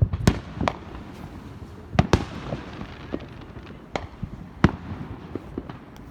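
Fireworks going off: irregular sharp bangs and smaller pops of differing loudness, the loudest near the start, about two seconds in, and again a little before five seconds, over a steady background hiss.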